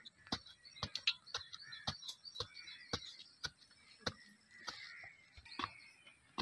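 A small hoe striking and breaking up dry, clumpy soil in regular chops, about two a second.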